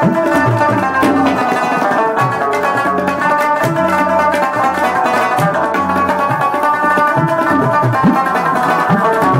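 Afghan rubab and tabla playing together: the rubab's quick plucked runs over tabla strokes, with deep bass-drum notes bending in pitch.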